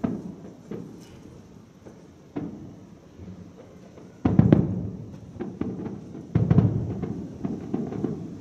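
Aerial firework shells bursting in the distance: four deep booms, the two loudest about four and six seconds in, each trailing off over about a second, with lighter crackling pops between them.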